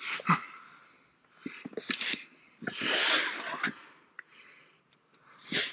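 Bedding rustling and a camping cot shifting as a man climbs off it, in several separate bursts. The longest and loudest is a rush of fabric about three seconds in, with shorter sharp sounds near the start, about two seconds in and near the end.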